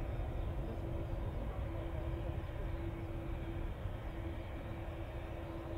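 Boeing 787-9 Dreamliner's twin jet engines at taxi idle as the airliner taxis: a steady low rumble with a faint steady hum over it.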